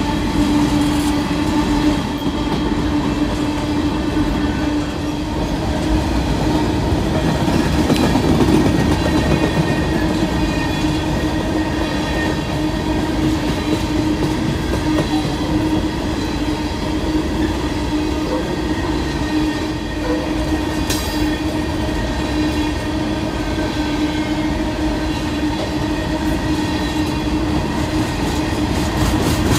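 Freight train of coal hopper cars rolling past close by: a steady loud rumble and clatter of wheels on the rails, with a steady droning tone underneath.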